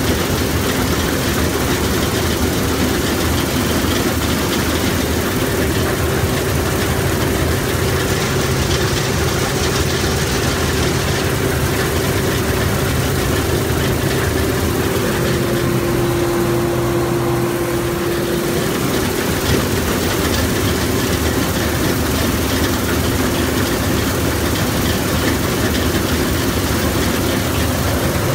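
Bizon Z056 combine harvester running steadily under load while cutting grain: its SW400 six-cylinder diesel engine together with the reel and threshing machinery. It is heard close up from the operator's platform, with a slight change in the engine's pitch about halfway through.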